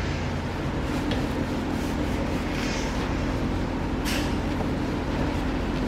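A steady low machine hum runs throughout. Over it come a few brief, faint rubbing sounds of a paper towel wiping a plastic headlight lens.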